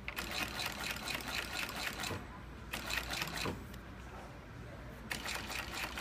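Galaxy side-wall stitching machine for footwear running in bursts of rapid stitching, each a fast run of ticks, with short pauses between bursts over a steady low motor hum.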